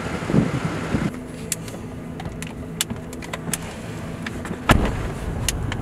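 Pickup truck idling, heard from inside the cab as a steady low hum, with scattered small clicks and handling noises and one louder thump a little before the end.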